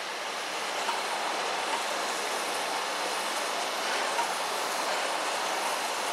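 LNER A4 Pacific steam locomotive being turned slowly on a railway turntable: a steady rushing noise with faint light clicks a little under once a second.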